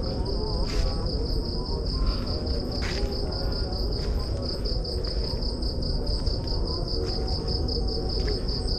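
Night insects chirring in a steady, evenly pulsed high trill, over the low scuffing and rustle of someone walking up a dirt forest trail, with a couple of sharp clicks about one and three seconds in.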